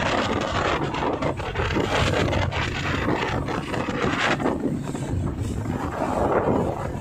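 Yamaha outboard motor running at speed, with wake water rushing and wind buffeting the microphone. About four seconds in the high rushing falls away, leaving a duller, lower rumble.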